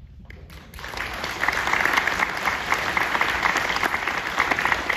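Audience applauding, starting about a second in and quickly building to a steady, full round of clapping.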